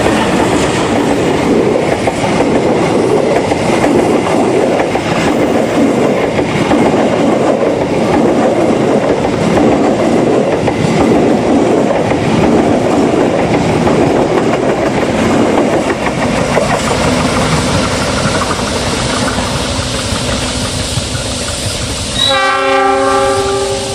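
A diesel-electric locomotive-hauled passenger train passing close by, its wheels rumbling and clattering over the rails; the noise eases off after about sixteen seconds. Near the end a train horn sounds once for about a second and a half.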